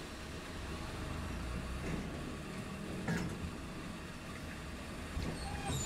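Inside a streetcar while it runs: a steady low rumble of motor and wheels, with a few short knocks about two and three seconds in and again near the end.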